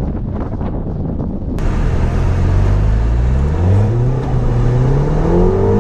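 A tuned turbocharged four-cylinder engine in a 2014 Audi TTS, accelerating with its pitch climbing steadily through the second half. A rough rumble comes first.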